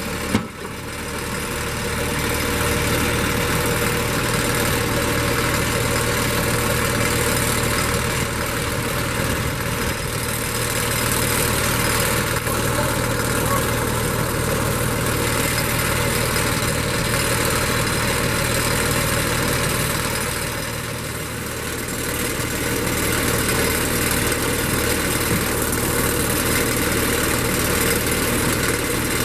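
An engine running steadily, easing off briefly about two-thirds of the way through, with a sharp click just after the start.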